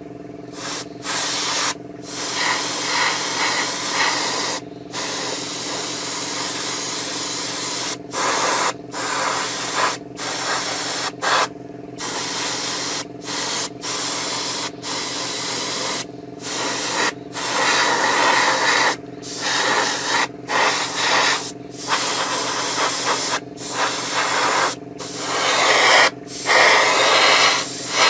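Airbrush spraying paint onto a plastic scale model, a hiss of air and paint that starts and stops over and over as the trigger is worked, in bursts from under a second to a few seconds long. A steady low hum runs underneath.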